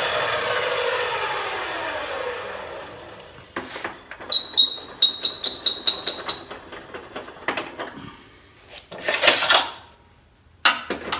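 Table saw coasting down after being switched off, its pitch falling as it fades over about three seconds; then a run of light metallic clicks and knocks, some ringing briefly, as the saw's parts are handled.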